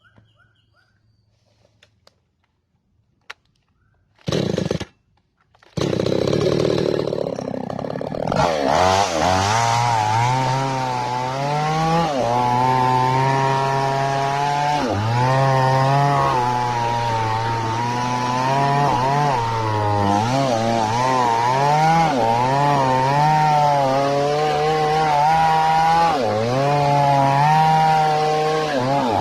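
Falcon mini two-stroke chainsaw: a short burst of engine noise about four seconds in, then the engine starts about six seconds in and runs to warm up, its speed rising and falling unevenly.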